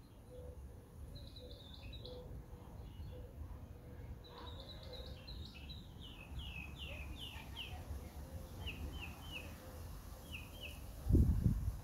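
Small birds chirping in runs of short, quick, falling notes, over a steady low rumble, with a brief louder low rumble near the end.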